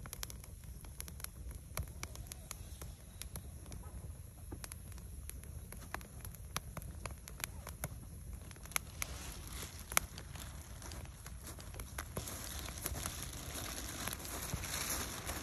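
Campfire of split wood crackling, with sharp snaps and pops scattered irregularly over a steady low rumble. A hiss grows louder near the end.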